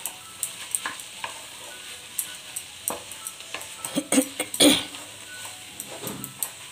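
Shredded cabbage sizzling in a hot kadai while a spatula stirs it, scraping and knocking against the pan in irregular strokes; the loudest strokes come about four to four and a half seconds in.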